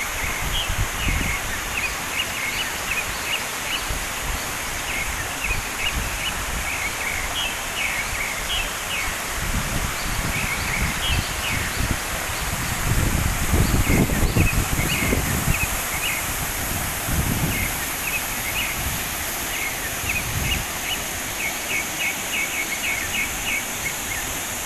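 Outdoor mountain ambience: a bird chirps in quick repeated runs over a steady hiss. Gusts of wind buffet the microphone now and then, most strongly about halfway through.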